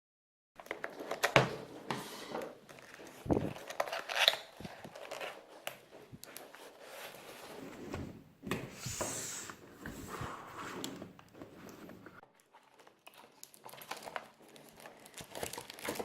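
A keyboard's cardboard box and packaging being opened and handled, with irregular crinkling, rustling and rubbing and light knocks, and a longer crinkle about nine seconds in.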